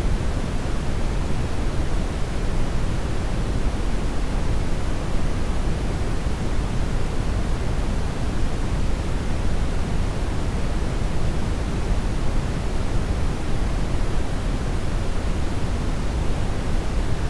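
Steady synthesized noise, even and unchanging, with most of its strength in the low end and thinning toward the top.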